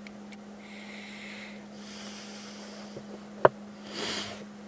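Soft handling noise from hands working over a small wooden flashlight and its parts, with one sharp click about three and a half seconds in, over a steady low hum.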